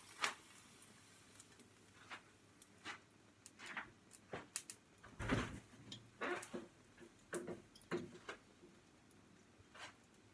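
Scattered soft knocks and rustles of someone moving about a kitchen, roughly one every half second to second, with light handling of doors or drawers.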